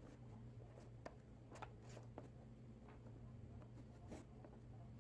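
Faint handling sounds of a nylon band clamp being fitted around a glued box frame: the strap scraping as it is pulled through and a few light clicks from its plastic corner blocks and ratchet head, over a steady low hum.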